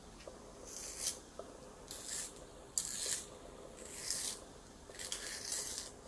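A wooden colored pencil being twisted in a handheld pencil sharpener, the blade shaving the wood in about five short scraping strokes roughly a second apart.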